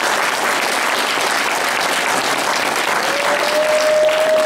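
Crowd applauding: dense, steady clapping. Near the end a single held tone joins in for about a second and a half.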